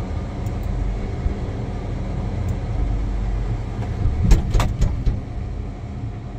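Tracked feller buncher's diesel engine running steadily, heard from the cab, as the machine swings slowly around. A quick run of sharp knocks and clicks comes about four to five seconds in.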